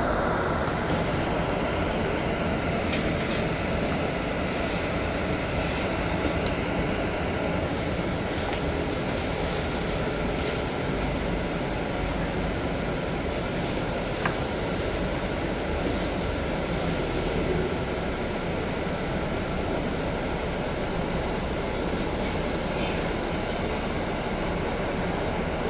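Steady running noise inside a moving city bus, with scattered light clicks and rattles.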